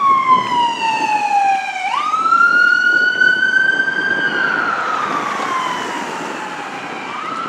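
Ambulance siren on wail, passing close by and pulling away. The tone slides slowly down, jumps up about two seconds in, climbs slowly, then falls again and jumps up once more near the end, over a rumble of engine and tyres.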